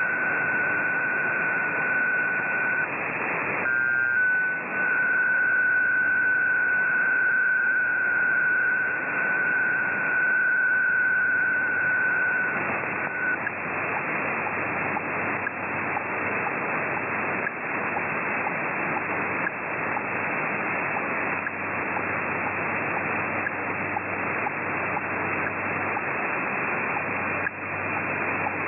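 Shortwave receiver on 9400 kHz in sideband mode: a steady single tone, broken a few seconds in by a short stepped pair of tones, stops about 13 seconds in, leaving the band's even hiss with faint crackles. Everything is heard through the receiver's narrow filter, so nothing sounds above about 2.7 kHz.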